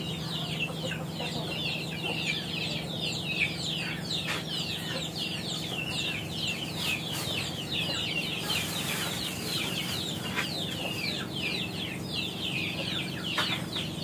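Chickens: a brood of chicks peeping without pause, many short high chirps that fall in pitch, over a steady low hum.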